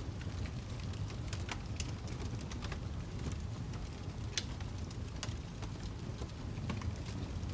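Wood fire crackling: a steady low rumble of flames with scattered sharp snaps and pops, the loudest about four and a half seconds in.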